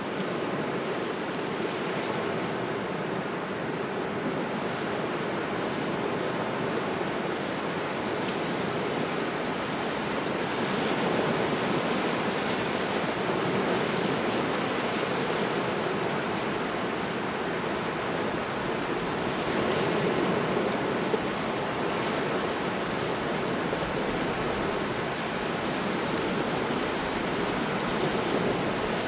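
Waves washing onto a shore in a cold, gusty wind: a steady rushing wash that swells louder a few times.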